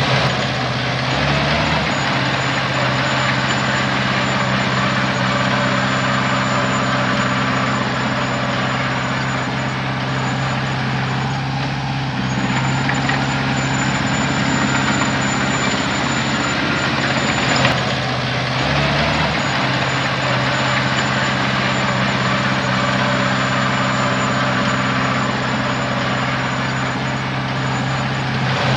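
Heavy diesel engine running steadily under work. Its note shifts briefly about a second in, again around nineteen seconds in and near the end. A thin high whine comes and goes above it.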